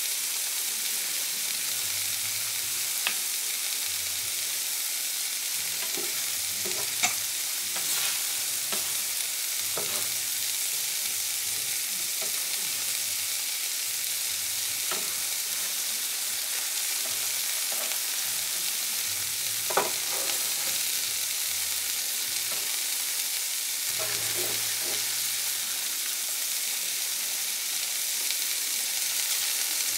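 Beaten eggs sizzling on a Blackstone E-Series indoor electric griddle: a steady frying hiss with a few sharp ticks scattered through it.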